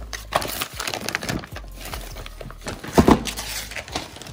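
Wrapping paper being ripped and crumpled off a gift box: a busy run of tearing and crinkling, with the loudest rip about three seconds in.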